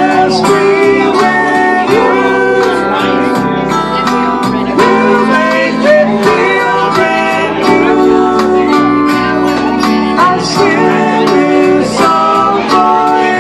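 Live acoustic guitar strummed and picked, accompanying male singing in a slow, soulful ballad.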